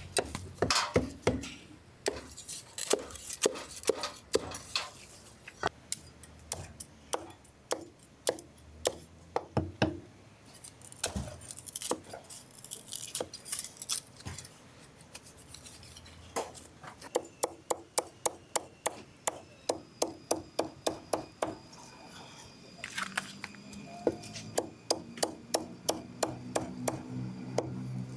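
Cleaver chopping roast pork on a chopping board: sharp, regular chops in quick runs of about three or four a second, with short pauses between the runs.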